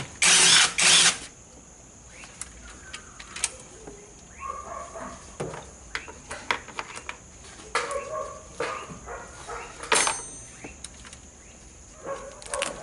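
A loud rustle of handling in the first second, then scattered light clicks and taps of hands working on the hybrid inverter's cable connectors, with a sharper click near the end. A faint steady high whine runs underneath.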